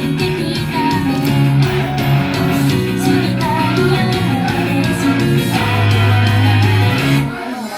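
Live idol-pop song with a guitar-driven band backing and a sung melody, played loud. The bass drops out briefly near the end before the music carries on.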